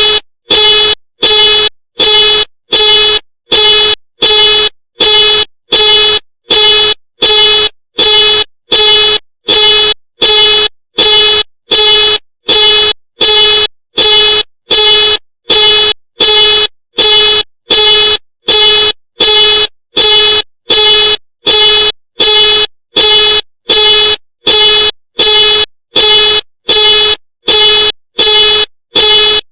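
Ford car alarm sounding the horn in steady, evenly spaced blasts, a little over one a second, each an identical loud, flat-pitched honk.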